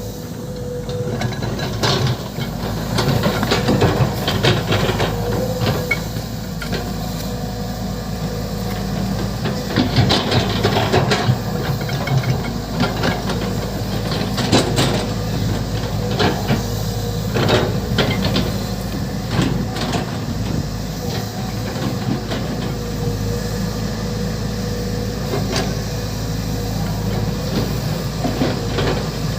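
Volvo EC200D excavator running under load, its engine droning steadily with a constant whine, while irregular metallic knocks and clanks from the working machine come every second or two.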